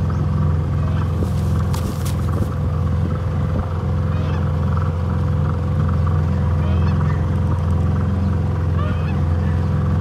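A small boat's motor running steadily with an even, droning hum.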